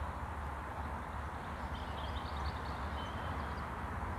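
Steady low outdoor background rumble with an even hiss over it, and a few faint high chirps near the middle.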